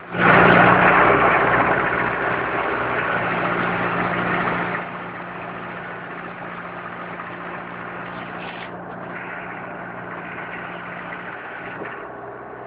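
Diesel engine of a Mahindra Arjun 605 tractor powering a BULL backhoe loader, running steadily. It is loudest for the first five seconds, then drops to a quieter steady run.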